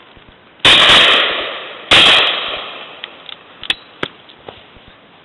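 Two shotgun shots about a second and a quarter apart, fired at game birds overhead, each echoing and dying away over about a second. A few light clicks follow.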